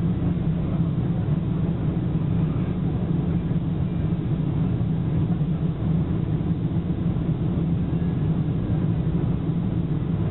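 Boeing 747-400 in flight on approach: a steady low drone of engines and airflow as heard inside the cabin, even in level throughout.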